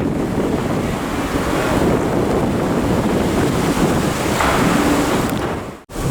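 Wind buffeting the microphone: a loud, steady rumble, with a brief sharp dropout near the end.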